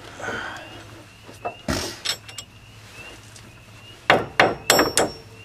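Hammer blows on a broken, rusted wheel stud in a car's front wheel hub, trying to drive it out: one knock a little under two seconds in, then a quick run of about five sharp metallic strikes near the end, the last ones ringing.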